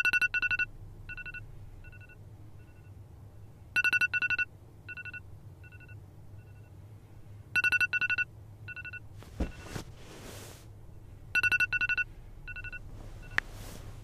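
Smartphone ringing with a repeating electronic tone: a loud cluster of quick high beeps, then fainter repeats that fade away, the pattern coming round about every four seconds. A rustle about two-thirds of the way in and a sharp click near the end.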